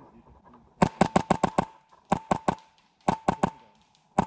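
Airsoft rifle firing three quick bursts of shots, about seven, then four, then four, with a steady whine under each burst, and one single shot near the end.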